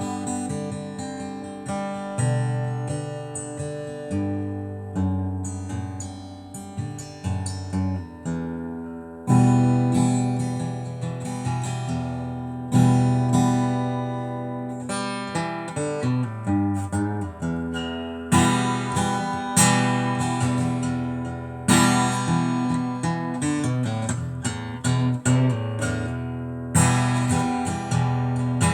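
Acoustic guitar playing an instrumental passage of chords that are struck and left to ring, with no singing.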